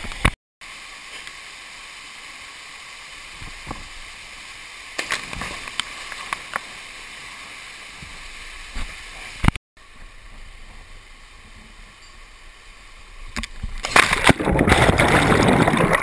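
Canyon stream water rushing and sloshing around a camera held in the water, with scattered knocks and splashes; the sound drops out twice for a moment. Near the end the camera plunges into churning white water and a loud rush of bubbling, splashing water takes over.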